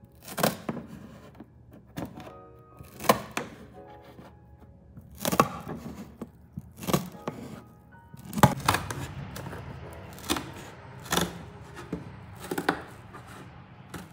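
Scissors snipping through corrugated cardboard, a series of sharp cuts about one every second or two, with a stretch of continuous cutting noise around the middle.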